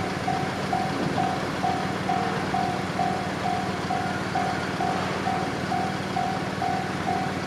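Japanese railway level-crossing warning bell ringing: an electronic 'kan-kan' tone struck evenly about twice a second, with a steady low rumble and hum underneath.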